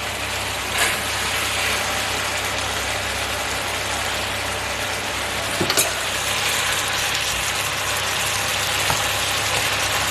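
Chicken and vegetable stir-fry sizzling steadily in the pan over a constant low hum, with a couple of sharp clicks of the spatula against the pan, about a second in and again near six seconds.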